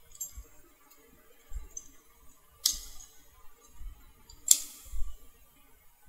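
Metallic clicks and clinks from a stainless-steel cylindrical knob door lock as a screwdriver tip is pressed into the release hole in its knob, working the knob free. Two sharper clicks stand out, a little under halfway and about three quarters of the way through, over light handling knocks.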